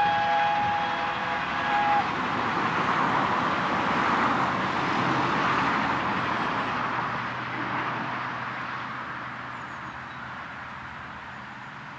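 Whistle of the steam locomotive 60163 Tornado sounding a chord of several notes, cutting off about two seconds in. The noise of the train climbing past follows, loudest around the middle, then slowly fading away.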